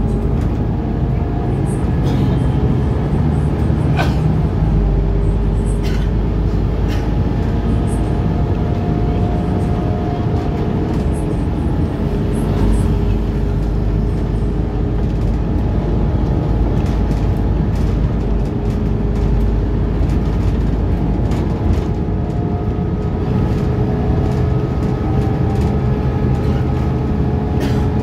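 Scania articulated bus heard from inside the cabin while driving: a steady engine and road rumble with humming drivetrain tones, and now and then a sharp click or rattle from the body, the loudest about four seconds in.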